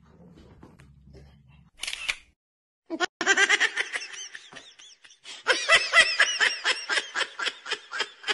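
Laughter in rapid repeated bursts, starting about three seconds in and breaking off briefly around the middle. A short hiss comes about two seconds in, and before that there is only a faint low hum.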